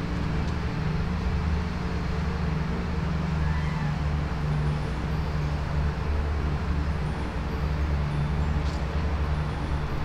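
Steady low engine drone, as of road traffic or a motor running nearby, holding at an even level throughout.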